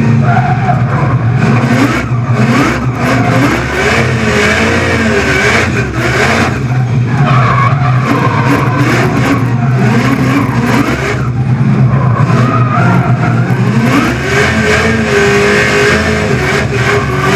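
Vortech-supercharged LS2 V8 of a Holden VE Commodore drift car revving up and down repeatedly under hard throttle, with its tyres squealing and skidding.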